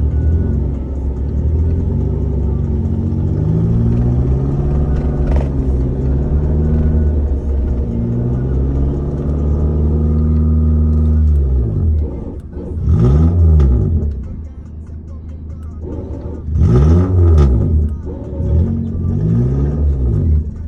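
Suzuki Jimny's engine, heard from inside the cabin, held at high revs for about eleven seconds, then revved up and dropped back three times while the stuck vehicle makes no headway.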